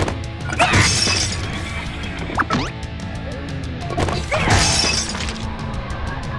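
Background music with two loud shattering crashes, about half a second in and again about four and a half seconds in, as a car tyre crushes a brittle object into shards. A short sliding squeak-like effect comes between them.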